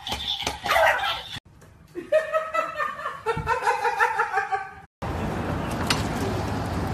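A person laughing in a run of short bursts, cut off abruptly and followed by a steady background hiss with a single click.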